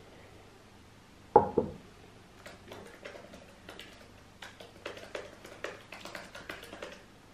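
Typing on a MacBook laptop keyboard: irregular quick key clicks starting about two and a half seconds in. Before that, a single short loud knock about a second and a half in.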